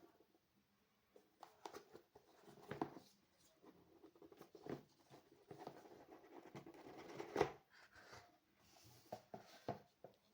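Quiet handling of a keyboard and its packaging: scattered rubbing, scraping and light clicks, with a sharper knock about seven seconds in.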